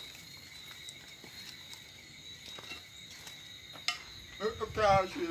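Steady high-pitched chorus of crickets. A voice speaks briefly near the end.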